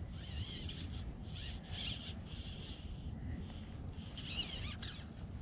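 Fly line being stripped in by hand through the rod guides: about four short hissing pulls, each about half a second, with a gap before the last. Wind rumbles on the microphone throughout.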